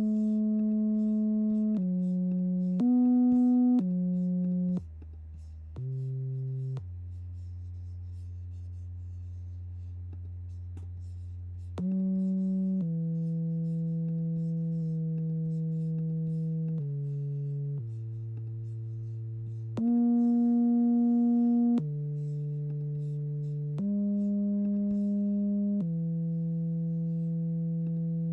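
Synthesized sonification of live weather data: a string of steady electronic notes, each with a few overtones, held from one to several seconds before jumping abruptly to a new pitch. A long low note is held for about five seconds near the middle.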